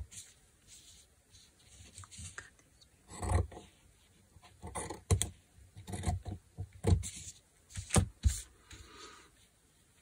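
Scissors cutting a fabric scrap, with rustling and light knocks as the fabric pieces are handled on the table. The noises come in short irregular bursts and stop shortly before the end.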